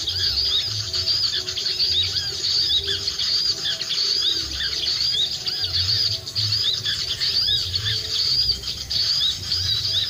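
High-pitched bird calls: short chirps repeated quickly and over and over, with wind gusting on the microphone.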